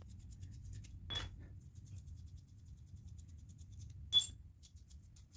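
Small metal parts clinking: two sharp clinks with a brief metallic ring, about three seconds apart, the second louder, as bolts for a motorcycle flywheel puller are handled. A faint low hum runs underneath.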